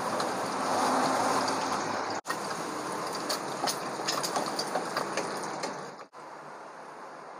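An egg frying in hot oil in a wok: a steady sizzle scattered with irregular crackles and pops of spitting oil, breaking off briefly twice.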